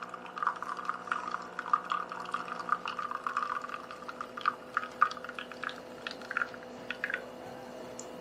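De'Longhi La Specialista espresso machine pump humming steadily during extraction while espresso pours and drips into the cup with irregular spattering. The spattering dies away about seven seconds in, leaving the steady hum.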